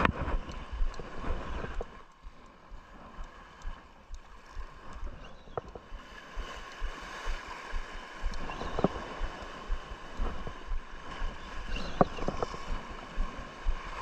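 Sea water washing and gurgling, with wind buffeting the microphone and a few short sharp clicks.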